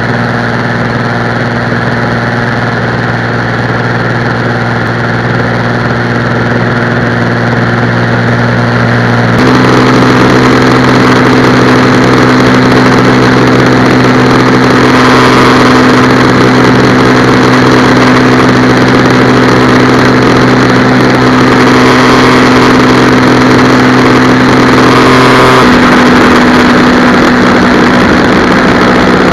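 Single-engine light aircraft's engine and propeller droning steadily in flight, with wind rushing over the microphone. The drone jumps abruptly in level and tone about a third of the way in and again near the end.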